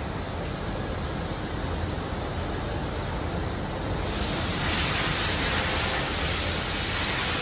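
Factory machinery running with a steady low noise; about four seconds in, a loud, even hiss starts suddenly and carries on.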